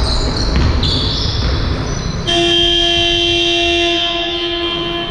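A basketball being played for about two seconds, then a gym's scoreboard buzzer sounds one long steady tone for about two and a half seconds and stops just before the end. It is the horn that ends the game.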